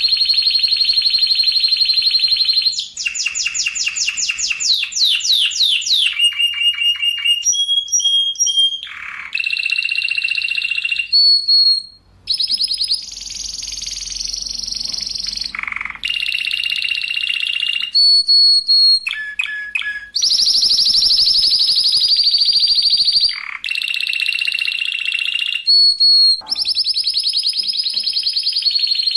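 Spanish Timbrado canary singing: a continuous string of tight, rapid rolls and trills, one phrase running straight into the next every second or two. The phrases vary between steady ringing rolls and quick sliding notes, with a short pause near the middle.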